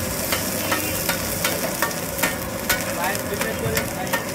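Food sizzling in a hot pan, with a metal spatula clinking and scraping against the pan about two or three times a second.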